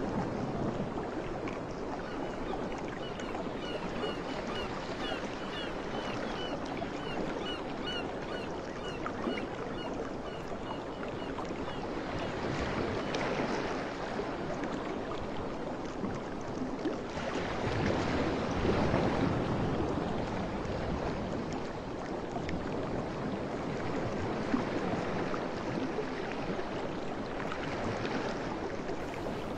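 Steady rushing outdoor noise that swells now and then. From a few seconds in until about the middle, a short high chirp repeats about twice a second.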